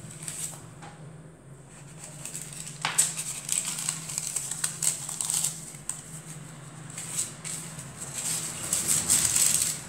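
Hands working dough on a floured wooden pastry board: soft, irregular rustling and patter of flour being sprinkled and handled, with a single sharp knock about three seconds in as a round cutter is pressed through the dough.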